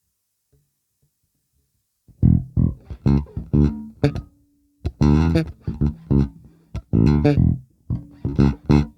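Chris Larkin Reacter B5 beech-bodied guitar played solo: after about two seconds of near silence, a run of plucked notes and short phrases with deep low notes and brief pauses between them.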